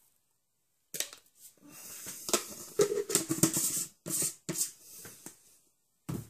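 A man coughing in irregular bursts just after dry-scooping creatine powder, the powder catching in his throat.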